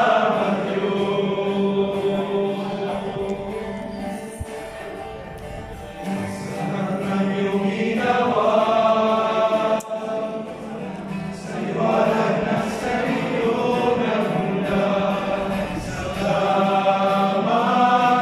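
A group of voices singing a worship song in harmony, in phrases that swell and fall back every few seconds, with acoustic guitar accompaniment.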